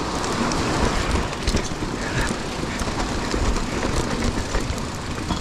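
Mountain bike rolling over a rocky dirt trail: a continuous rumble of tyres on dirt with frequent small clicks and rattles from the bike.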